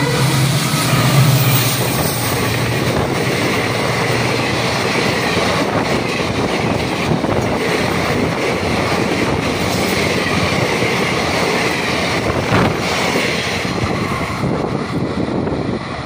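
WDM diesel locomotive passing close by hauling a passenger train. Its engine is loud for the first second or two, then the coaches roll past with steady wheel-and-rail noise and clickety-clack, thinning a little near the end as the last coach goes by.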